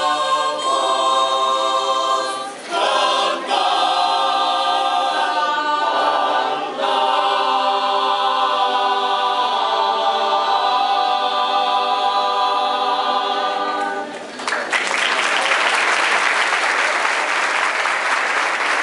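Mixed-voice choir singing a cappella, closing on a long held chord that cuts off about fourteen seconds in. The audience then breaks into applause.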